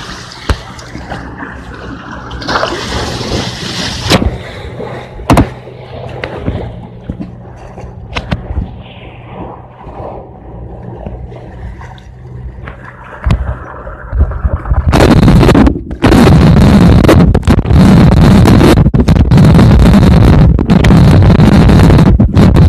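BMP infantry fighting vehicle fording a river: its engine hums steadily under sloshing, gurgling water, with scattered sharp knocks. About fifteen seconds in, a much louder, distorted rushing noise overloads the recording.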